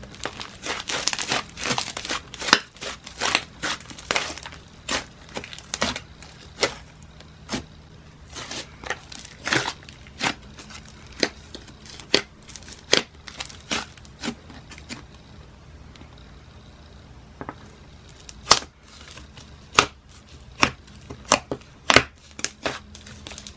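Slime being squished, stretched and pressed by hand, making crackly sizzles and sharp bubble pops. The crackling is dense for the first few seconds, then thins to scattered pops, with a short lull and a run of loud single pops near the end.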